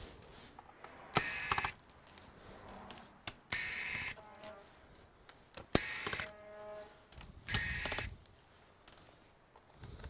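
Electric screwdriver running in four short bursts of about half a second each, backing out the screws of a laptop's bottom cover.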